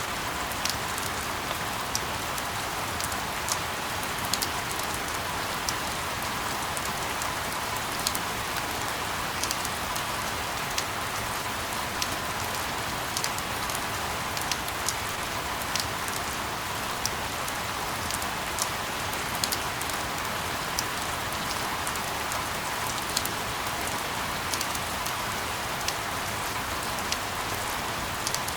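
Steady rain falling: an even hiss sprinkled with many small, irregular drop ticks.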